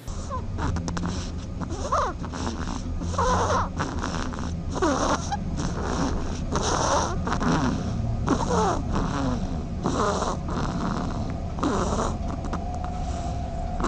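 An animal snoring, with a regular snore about every second and a half to two seconds. Each snore carries a short whistle that slides in pitch.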